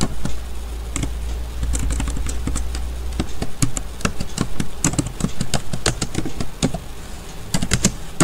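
Typing on a computer keyboard: a run of irregular key clicks, with a steady low hum under the first three seconds.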